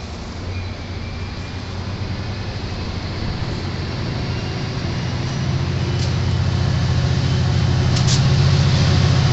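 Diesel locomotive engine running with a low drone that grows steadily louder, rising a little in pitch about halfway through.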